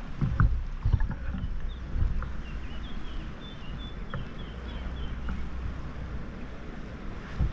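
Sea water sloshing and lapping against a camera held just above the surface by a swimmer, with a low rumble of water and wind on the microphone. Several heavier splashes from the swimming strokes come in the first second or so, then small ticks and drips.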